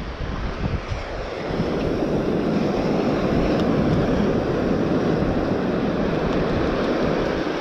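Ocean surf washing up a beach, mixed with wind on the microphone; the wash swells about a second and a half in and then holds steady.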